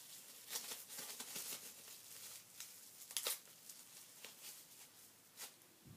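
Packaging being handled: faint, irregular crinkling and rustling with a few sharper crackles, the sharpest about three seconds in.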